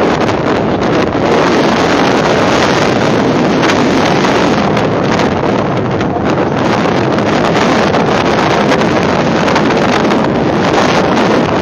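Strong wind buffeting the camera microphone on an exposed ridge, a loud steady rumbling roar that gusts slightly.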